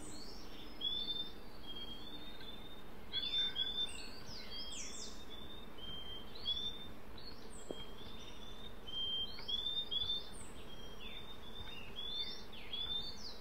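Purple-throated euphonias calling: short high chirps in quick runs, with falling whistles between them, over a steady background hiss of the forest.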